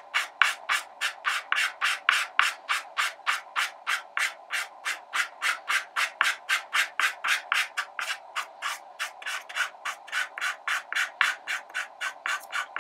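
Soft pastel stick scratching across paper in quick, short feathering strokes, about four a second.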